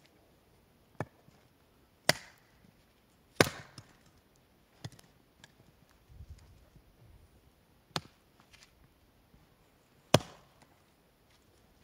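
Axe splitting birch firewood on a chopping block: about six sharp cracking blows, the heaviest about two, three and a half and ten seconds in. There is a soft low shuffle of a log being set on the block near the middle.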